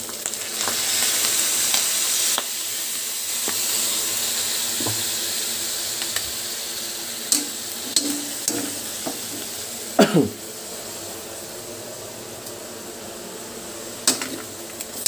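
Pork pieces sizzling in a hot wok as soy sauce is poured over them; the sizzle is loudest in the first couple of seconds. A metal ladle stirs and clinks against the wok, with a louder scrape about ten seconds in.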